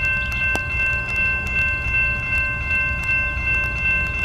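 Low, steady rumble of a CSX freight train, with faint steady high tones above it and a single click about half a second in.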